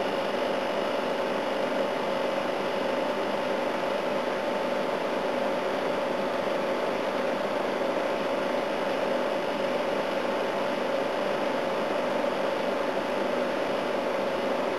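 Air-conditioning unit running steadily under test after being recharged with refrigerant: an even rush of fan air with a steady hum from the running compressor.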